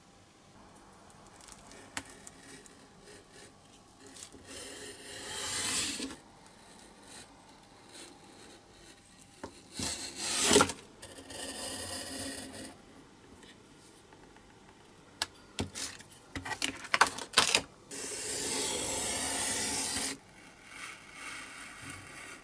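Snap-off craft knife cutting through printed paper on a cutting mat, partly drawn along a steel ruler: several scratchy cuts of one to two seconds each, the longest late on, with a run of sharp clicks and taps between them.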